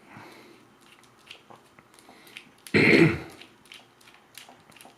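Light plastic clicks and taps as a power plug or connector is taken apart by hand, with one loud cough about three seconds in.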